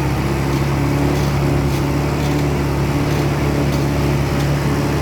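ATV engine running at a steady pitch, an even drone with no revving.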